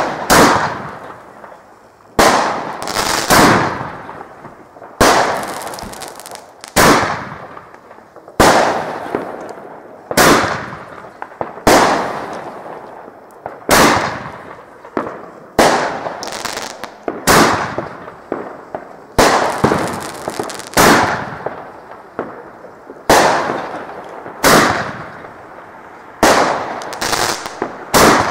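Fireworks going off outdoors, a loud bang every second or two with each bang trailing off over about a second, some coming in quick pairs.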